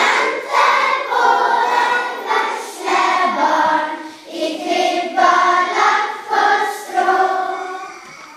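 Children's choir singing, with long held notes. The last phrase dies away near the end.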